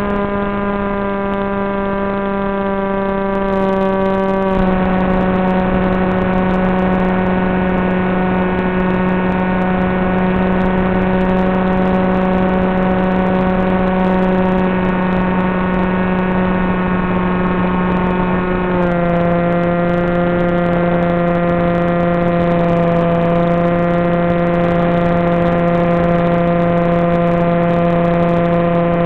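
Electric motor and propeller of an FPV flying wing running steadily in flight with a buzzing, pitched drone. The pitch drops in a step about four and a half seconds in and again near nineteen seconds, as the throttle is eased back.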